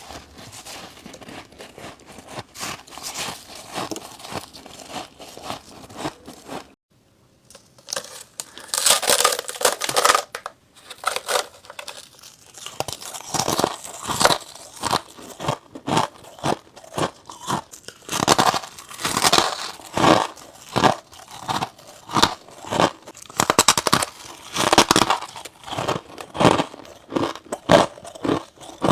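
Close-miked biting and chewing of freezer-top frost and thin humidifier frost: rapid, crisp crunching. The crunching breaks off briefly about seven seconds in and comes back louder, in separate bites.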